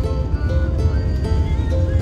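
Background music: a melody of held notes stepping from pitch to pitch over a heavy, steady bass.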